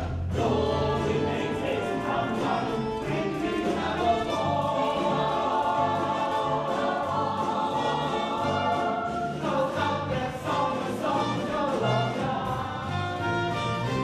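Musical-theatre ensemble number: a full chorus singing together over an orchestral accompaniment with a steady beat.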